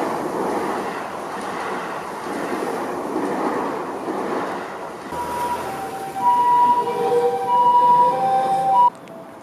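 Train noise, a steady rush; about five seconds in, an electronic warning tone alternating between two pitches starts over it and grows louder, then everything cuts off abruptly near the end.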